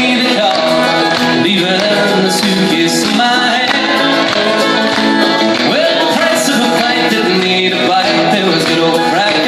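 Live band music played through a PA and recorded from the audience: an upbeat country tune with accordion, acoustic guitar and drums.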